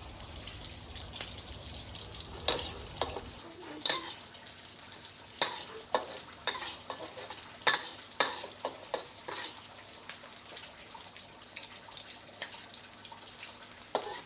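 Pieces of blanched snapping turtle meat frying in hot oil, a steady crackling sizzle, with sharp knocks of a stirring utensil against the pan every second or so. The meat is being browned.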